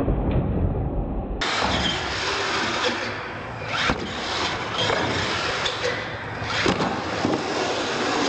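R/C monster truck driving hard on a concrete floor and jumping a ramp: steady motor and tyre noise, broken by sharp knocks about four seconds in and again near seven seconds as the truck lands and tumbles.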